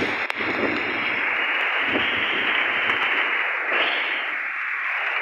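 Heavy rain with strong gusting wind: a loud, steady hiss, with low rumbles from the gusts that die down about two-thirds of the way through.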